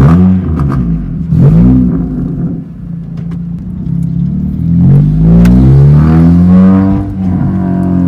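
Honda Civic's four-cylinder engine accelerating away from a stop, heard from inside the cabin: the revs climb and fall back a few times, then climb steadily through the second half.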